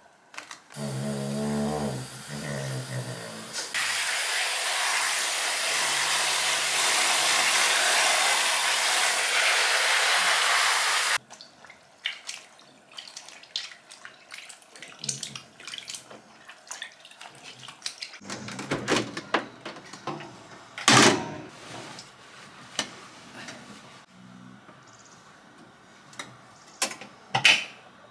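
Tap water gushing into a plastic tub of laundry, opening with a short wavering hum and cutting off abruptly about eleven seconds in. Then hands swish and squeeze wet clothes in the water, with a few sharp knocks near the end.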